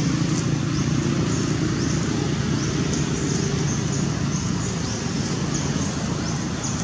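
Steady low hum of distant motor traffic, with short high chirps repeating about twice a second over it.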